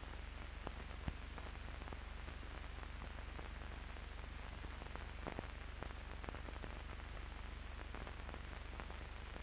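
Steady hiss and low hum of an old film soundtrack, with a few scattered clicks and pops.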